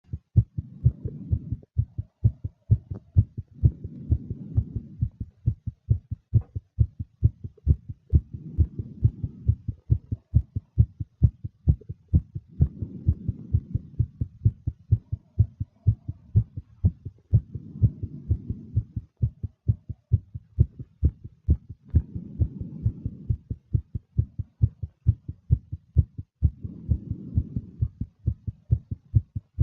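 A woman's fast heartbeat, an even run of thumps about two a second. Her slow breaths come in as soft swells about every four and a half seconds.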